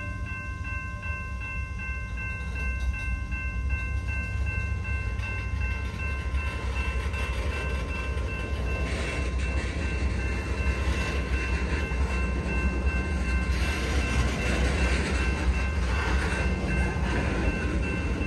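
Covered hopper cars rolling slowly over a road grade crossing: a low rumble of wheels and trucks that grows louder a few seconds in, with clattering wheel noise over the crossing, under the steady ringing of the crossing signal's bell.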